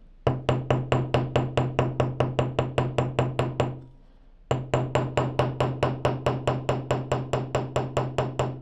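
Flat face of a ball peen hammer tapping rapidly on a rivet atop a steel bench block, about five or six light metallic taps a second, with a steady low ring under them. There are two runs of taps with a short pause partway through. The hammering spreads the flush-cut rivet end so it splays flat to set the rivet.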